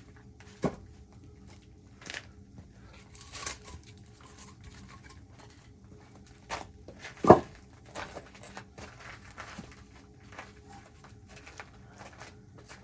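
Scattered small knocks and rustling of objects being handled, with a sharp knock under a second in and a louder thump about seven seconds in, over a faint steady hum.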